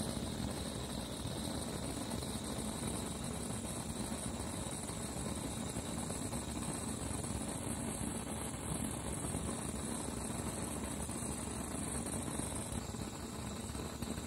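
Gas blow torch burning with a steady hiss, its flame heating a brass solder-on nipple on a motorcycle throttle cable.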